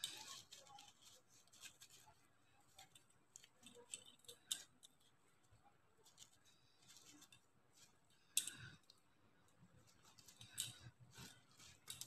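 Faint clicking and rustling of plastic pearl beads knocking together as strung beadwork is handled, with one sharper click about eight seconds in.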